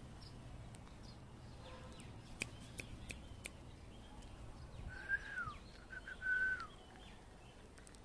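Rose-ringed parakeet giving two whistled calls, each a held note that drops in pitch at its end, about five and six seconds in.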